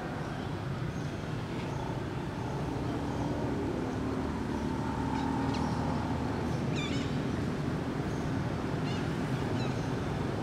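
Steady low background rumble, with a few faint high chirps about five to seven seconds in and again near the end.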